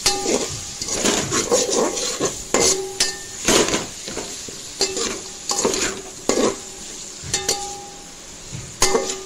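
Perforated metal ladle scraping and clinking against a hammered aluminium pot while stirring sliced onions and green chillies frying in oil, with a sizzle underneath. The strokes come irregularly, about once a second, and several leave the pot ringing briefly.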